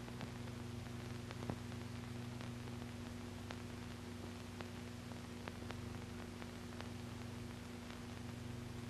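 Faint steady hum with hiss and scattered small clicks and crackles: the background noise of an old film soundtrack, with no narration or engine sound heard.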